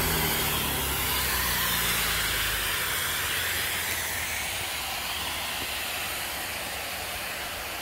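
A steady hiss with a slowly wavering high edge. A low rumble under it stops about two and a half seconds in.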